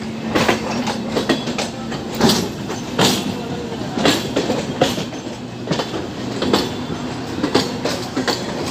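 EMU suburban trains rolling on parallel tracks, the wheels clattering over rail joints and points with a sharp knock about once a second over a steady rumble and low hum, heard from the open doorway of the moving train.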